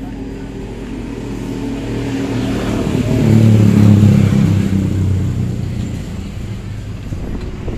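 Single-cylinder diesel engine of a generator set running and being revved up, rising to its loudest and highest about three to four seconds in, then easing back down. The engine is still under repair after dying.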